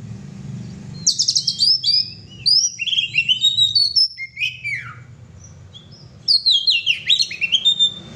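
Oriental magpie-robin (kacer) singing: rapid, varied whistles and chirps in two bouts, broken by a pause of about a second in the middle, over a low steady hum.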